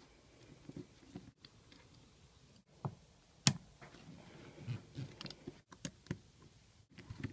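Faint, scattered clicks and taps of a screwdriver and small metal parts against a distributor housing as its Phillips screws are worked out, with one sharper click about three and a half seconds in.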